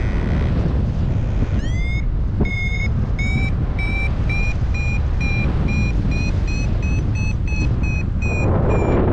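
Paragliding variometer beeping its climb tone: after a rising sweep about two seconds in, short high beeps at about two a second that quicken and edge up in pitch, signalling the glider is climbing in lift. Wind rushes over the microphone throughout, swelling near the end.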